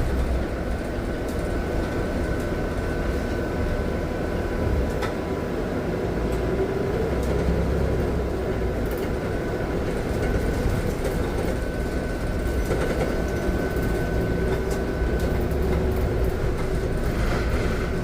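Inside a moving city bus: a steady rumble of engine and road noise, with a faint steady whine held above it.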